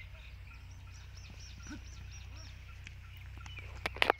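Birds calling outdoors: a quick run of high, arching chirps repeated about four times a second, over a steady low rumble. Near the end come a few sharp smacks, the loudest sounds.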